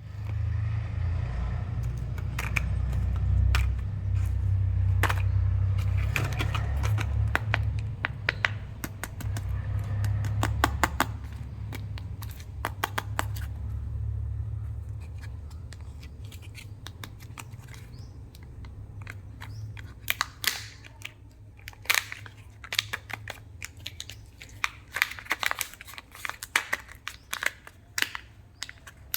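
Kinder Joy egg wrappers and plastic candy packaging being torn open and crinkled by hand, with many sharp crackles and clicks. A low rumble runs under the first half and fades out.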